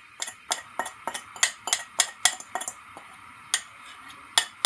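A metal fork clinking and scraping against a ceramic bowl while the last of the beaten egg is scraped out into the frying pan: quick clicks at about three or four a second, a short pause, then a few more near the end.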